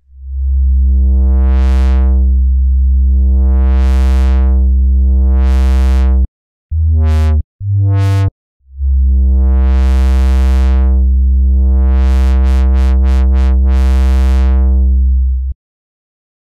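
Roland System-8 playing its Juno-106 model: a low synth bass note with the filter cutoff swept open and closed, so the tone brightens and darkens about three times. Two short notes follow about seven and eight seconds in, then another long note is swept, with quick back-and-forth cutoff wobbles near the end before it cuts off.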